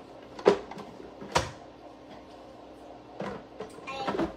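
Hard plastic parts of a kitchen juicer clicking and knocking as they are handled and fitted together: two sharp knocks about half a second and a second and a half in, then a few lighter clicks near the end.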